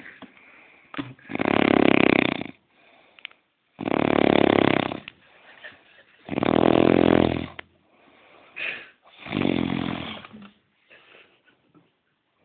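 A man snoring loudly in his sleep: four long snores about two and a half seconds apart, the last one weaker.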